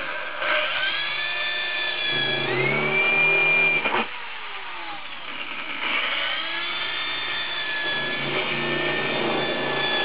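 Corded electric drill boring holes through a sheet-metal stovepipe and its end cap. The motor whines under load, its pitch rising about two and a half seconds in. It stops about four seconds in and starts again about two seconds later.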